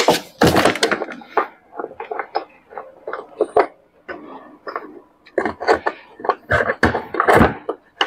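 Irregular clicks, taps and knocks of metal and plastic parts being handled as the brake on a Whirlpool top-load washing machine's gearbox is fitted and locked into place.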